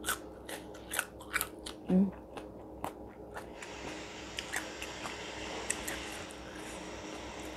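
Close-miked crunching and chewing of a batter-fried green chili: a run of crisp crunches over the first three and a half seconds, then quieter chewing. A short low hum comes about two seconds in.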